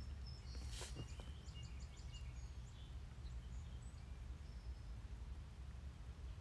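Faint outdoor ambience: a steady low rumble with a few short, faint bird chirps. A brief rustle of gear handling about a second in.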